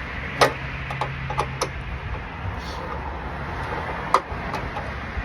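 Sharp metallic clinks and knocks of hand tools working on an air conditioner's rusty compressor, the loudest about half a second in and again about four seconds in, over a steady low hum.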